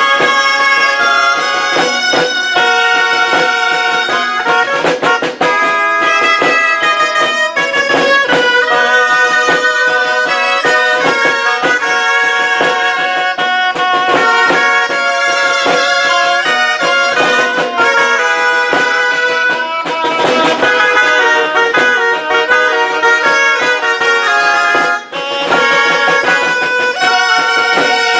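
A group of keyed gralles, Catalan double-reed shawms, playing a melody together, with a short break between phrases near the end.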